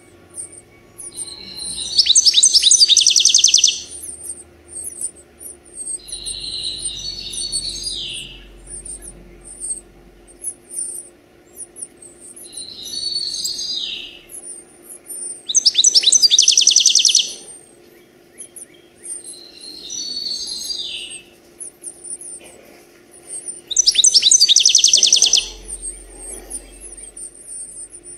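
Songbird song: loud, rapid trilled phrases about two seconds long, several seconds apart, alternating with softer downslurred phrases, over a constant thin high-pitched chirping.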